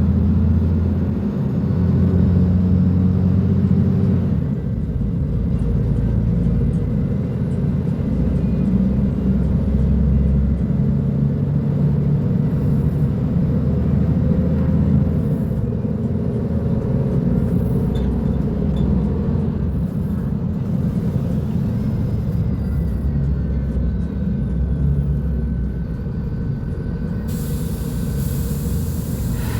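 Diesel engine of a Mercedes-Benz O500U city bus with a Voith automatic gearbox, running steadily with a deep rumble. Its note steps up and down several times as the bus changes speed and gear.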